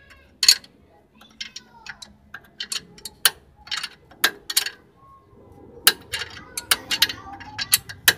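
Sharp, irregular metallic clicks and taps of a hand wrench working a nut loose on a lower suspension bolt, coming thicker near the end.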